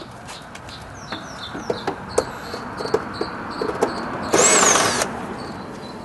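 Cordless drill-driver running in one short burst of just under a second, about four seconds in, backing out a Phillips screw under the nose of a scooter's plastic front panel. Before it come light clicks and taps of the bit being set on the screw.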